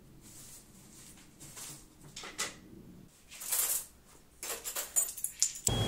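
Household handling noises: soft rustles and swishes, then a quick run of small clicks and knocks near the end.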